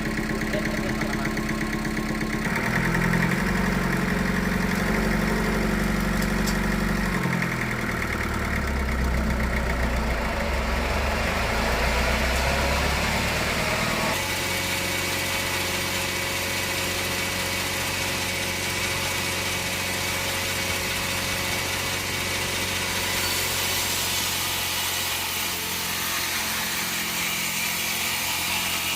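An engine running steadily and changing speed a few times, then settling into a steady hum about halfway through.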